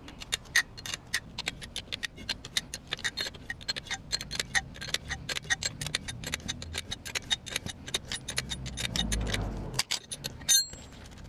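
Ratcheting 17 mm wrench clicking steadily, several clicks a second, as it spins the nut off the shock absorber's piston rod. Near the end there is a short metallic ring.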